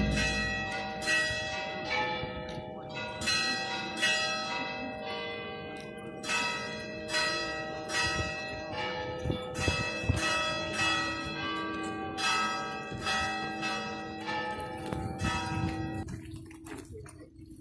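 Church bells ringing for a religious procession: several bells of different pitch are struck in a quick, uneven pattern, each stroke ringing on into the next. The strokes stop about sixteen seconds in and the last ring dies away.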